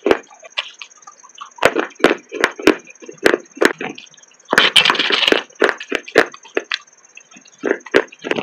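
Chunks of baked clay pot crunching between the teeth as they are chewed: a quick run of sharp, brittle crunches, with a longer, denser crunch about halfway through.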